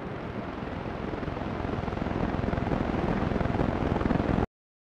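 A low rumbling whir with a fast flutter grows steadily louder, then cuts off abruptly near the end.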